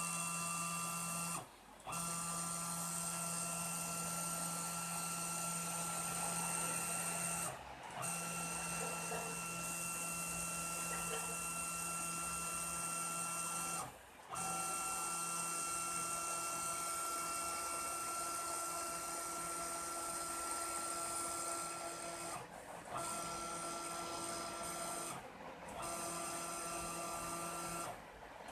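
CNC router machine's motors whining steadily as it runs, stopping briefly every few seconds and changing pitch between moves.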